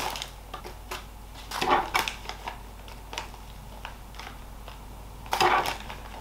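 A metal spoon scooping potting mix out of a plastic bag, with light clicks and patter as the mix drops into a small plastic pot. The bag crinkles louder twice, about one and a half seconds in and near the end.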